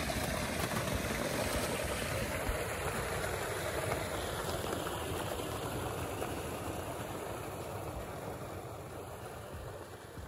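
Glacial meltwater rushing through a narrow crevice in the ice, a steady water noise that slowly fades toward the end.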